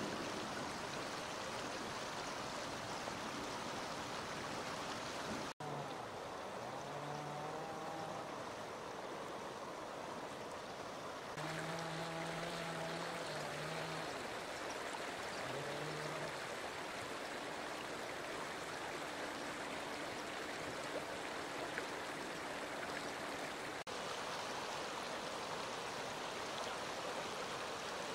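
Shallow, fast river rushing steadily over stones, an even wash of running water. A few short low pitched tones come and go above it in the middle.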